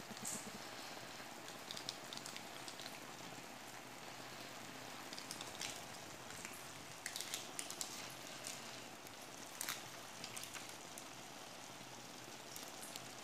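Spinach and potatoes sizzling gently in a frying pan: a faint steady hiss with scattered small crackles.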